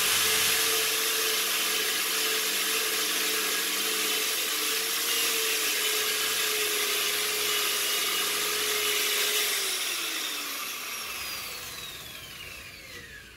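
Power tool's spinning wire brush scouring a wooden beam, stripping out the softer grain to give new lumber a weathered texture: a steady scratchy rush over a constant motor tone. About nine and a half seconds in the tool is switched off and winds down, its pitch falling.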